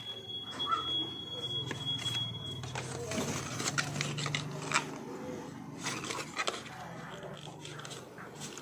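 Hands handling the cardboard phone box and its packaging: scattered light clicks, taps and rustles of card and paper. A thin steady high tone runs for the first two and a half seconds or so and stops, over a low steady hum.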